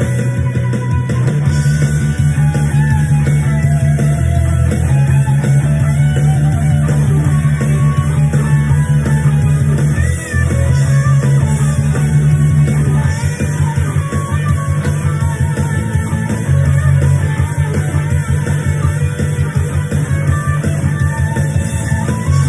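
Electric guitar playing an instrumental rock lead with bends and vibrato over a backing track of bass and drums. The backing breaks off briefly about ten seconds in.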